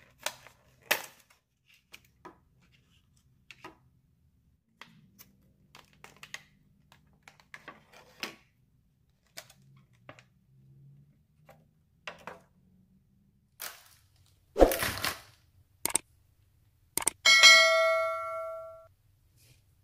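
Clear plastic food packaging being handled: clicks and crinkles of a plastic clamshell box and wrapper being opened, with a louder rustle of the plastic about three-quarters of the way through. Near the end, a click and then a single bell chime that rings and fades, a subscribe-button sound effect.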